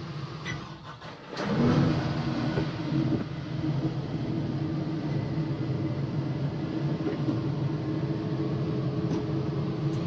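Tractor engine picking up sharply about a second and a half in, then running steadily under load.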